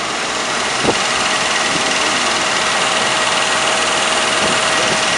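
The 350 small-block V8 of a 1990 GMC Sierra truck idling steadily and running smoothly, heard close up over the open hood, with a steady whine alongside. There is a short thud about a second in.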